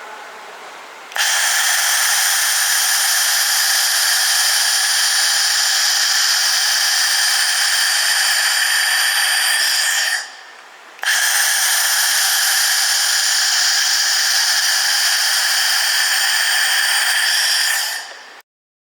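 UMW 2000 W water-cooled welding machine cleaning a weld seam: a loud, steady, high buzzing hiss with several steady tones. It runs in two spells of about nine and seven seconds with a short pause between them.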